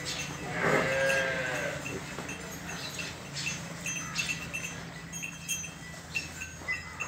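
A farm animal calls once, a single bending cry lasting about a second, starting about half a second in. Small bells clink lightly now and then.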